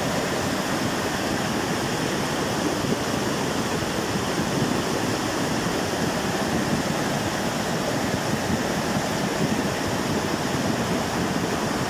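Muddy floodwater of a rain-swollen creek rushing past, a loud, steady noise of churning water with no breaks.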